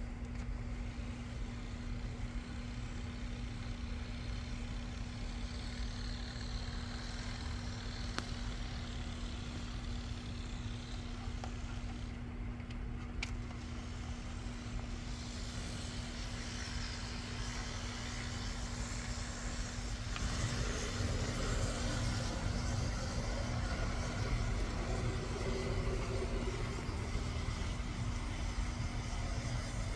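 Märklin 88468 Z-scale Class 460 model electric locomotive running around the layout track: a small electric motor's steady whir with a constant hum, a little louder from about two thirds of the way through.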